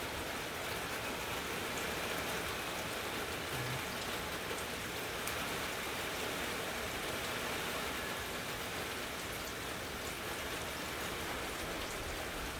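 Rain falling steadily: an even hiss with faint scattered drop ticks, from the rain of an approaching hurricane.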